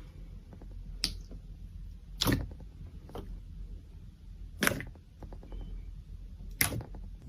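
Slime being pressed and poked, giving four short sharp pops about a second or two apart, over a faint steady low hum.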